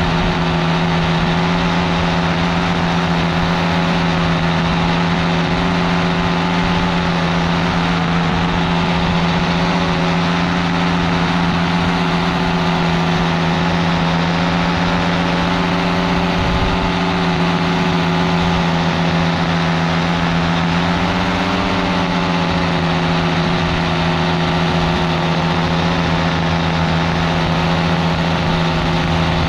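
Paramotor engine and propeller running steadily in flight, a constant drone; the pitch rises briefly about two-thirds of the way through.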